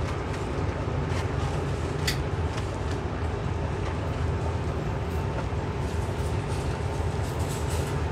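Steady low rumble of a busy food-stall kitchen, with a faint steady hum and a few sharp light clicks, the clearest about two seconds in.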